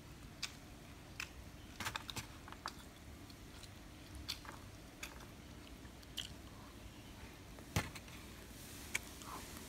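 A person chewing food close to the microphone: scattered, irregular soft clicks and crunches, with one louder click near the end.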